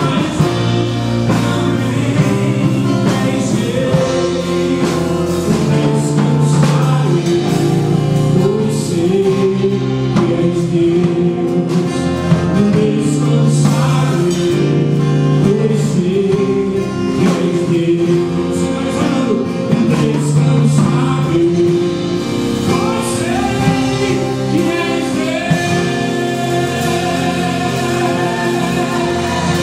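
Live Portuguese-language gospel song: a man sings lead while strumming an acoustic guitar, backed by electric guitar and a drum kit.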